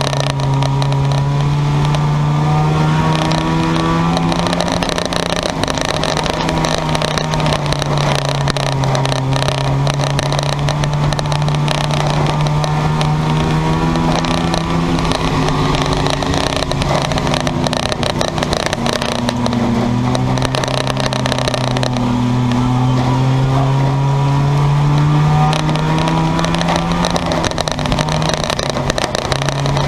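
Race car engines running hard in a junk yard car race, a steady loud drone of several engines whose pitch sags and climbs again as the cars lift and accelerate, twice dipping noticeably.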